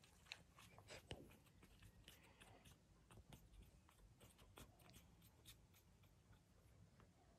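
Near silence with faint rustling and scattered small clicks as young puppies stir and shift in a plush dog bed, a few sharper ticks about a second in.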